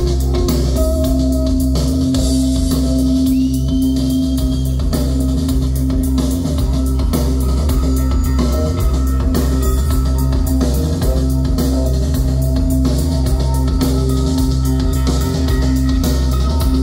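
Live rock band playing loud: a Stratocaster-style electric guitar over a steady drum beat and heavy bass.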